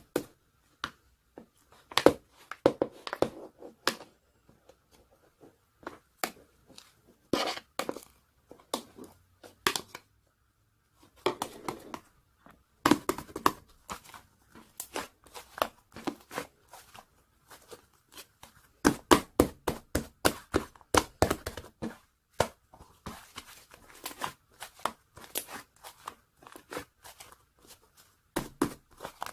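Hands squishing, stretching and folding a fluffy white clay slime, giving irregular sticky clicks, crackles and pops in dense clusters, with a short silent pause about ten seconds in.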